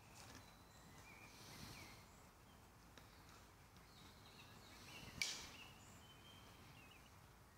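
Near-silent woodland with faint, distant bird calls in short chirps, and one sharp click a little past five seconds in.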